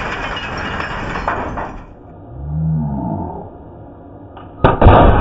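CRT television picture tube imploding under an air-cannon hit: the tail of a loud crash of breaking glass and debris settling, which dies away about two seconds in. Near the end comes another sudden loud crash of the tube breaking.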